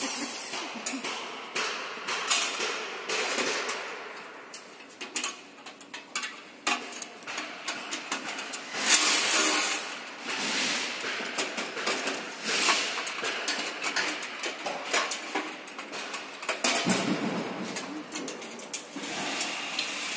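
Irregular metal knocks and clinks as parts of a 4S-120 reaper's chain drive and cutter-bar frame are handled and fitted by hand, with a few louder noisy bursts along the way.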